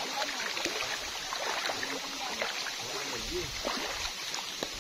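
Shallow stream running: a steady rush of flowing water with many small trickling splashes.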